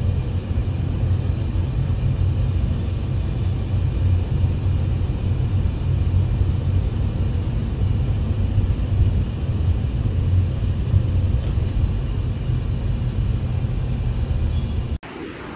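Steady low rumble of a moving vehicle's engine and road noise, heard from on board while riding along a street. It cuts off abruptly near the end.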